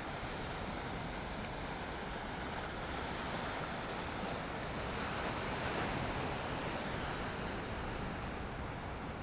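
Ocean surf washing against the shore, a steady wide hiss of breaking waves that swells a little about five seconds in and eases toward the end, with wind buffeting the microphone.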